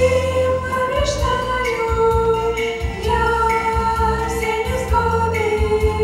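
Three girls singing a worship song together in harmony into microphones, holding long notes, over an instrumental accompaniment with a bass line that pulses about once a second.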